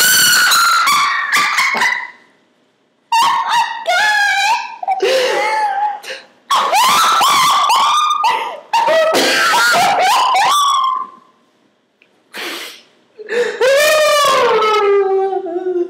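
Two people laughing hysterically: long, high-pitched peals of laughter broken by a couple of brief pauses. Near the end, one long wailing laugh slides down in pitch.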